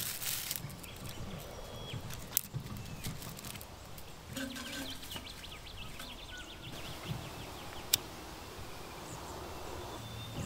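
Dry twigs and bracken fern rustling and snapping as they are handled and packed into a small folding metal twig stove, with two sharp clicks, one about two seconds in and one near eight seconds. Birds chirp in the background.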